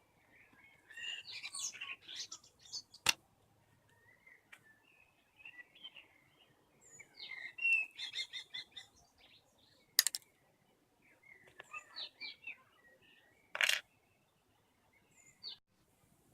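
Small birds chirping and trilling in several short phrases, with three sharp clicks spread through.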